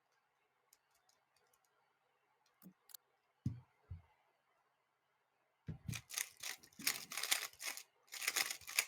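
A 3x3 speedcube being turned very fast during a solve: a dense run of quick plastic clicks and clatter starts about six seconds in. Before it there are a few soft isolated knocks.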